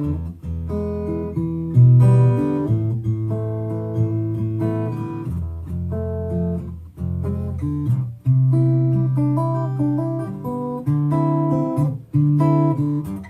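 Zebrawood grand concert acoustic guitar played through an LR Baggs Anthem-SL pickup and acoustic amp. Plucked bass notes ring under a picked melody, with short breaks between phrases.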